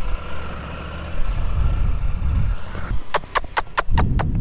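Suzuki GSX-R 750 K4's inline-four engine running steadily at low revs. About three seconds in, a quick run of sharp clicks begins, about four or five a second.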